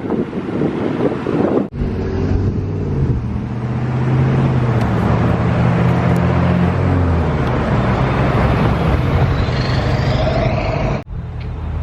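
Road traffic passing close by: engine hum and tyre noise from passing vehicles, with wind on the microphone at the start. The sound breaks off abruptly twice.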